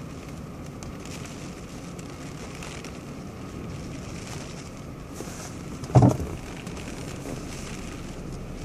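Storm rain and wind on a parked car, heard from inside the cabin as a steady rushing noise. A short, loud thump about six seconds in, the loudest sound here.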